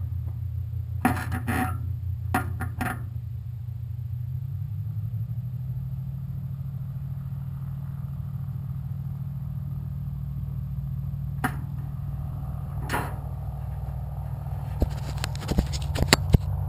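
An engine runs steadily as a low hum, rising slightly in pitch about four seconds in. Occasional knocks are heard, and a quick cluster of handling knocks comes near the end as a gloved hand grips the glider's canopy.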